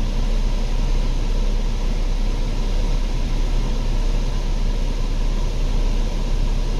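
Steady running noise inside the cabin of a 2010 Chrysler Sebring with its 2.7 L V6: a constant low rumble with an even hiss over it.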